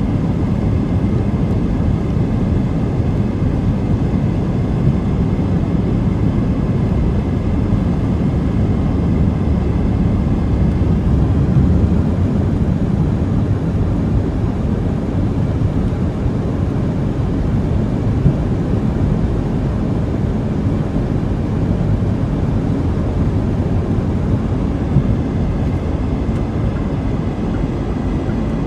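Steady road noise inside a moving car: tyres on wet pavement and the engine's low rumble, with no change in pace.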